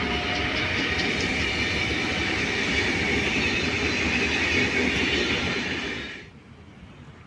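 Train passing on the line, a steady rolling noise of wheels on rail with a few faint clicks early on. It falls away suddenly about six seconds in, as the train clears.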